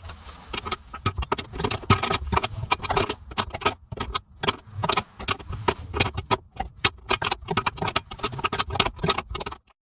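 Rapid, irregular metallic clicking and rattling, several clicks a second, as hand tools and metal air fittings are worked on. It cuts off abruptly near the end.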